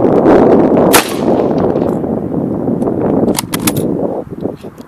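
A single shot from a Swedish M96 Mauser bolt-action rifle in 6.5×55mm, sharp and sudden about a second in, with wind rushing on the microphone. A few light metallic clicks follow later as the bolt is worked.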